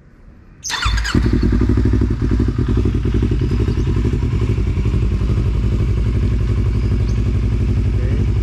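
Yamaha MT-25's parallel-twin engine cranks briefly and catches under a second in, then settles into a steady idle through a WRX GP3 K3 SE full-system aftermarket exhaust.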